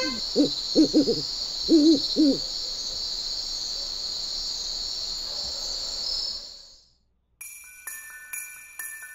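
Owl hooting several times in short pitched calls during the first two and a half seconds, over a steady high-pitched background that fades out about seven seconds in. After a brief silence, soft music with bell-like chimes begins.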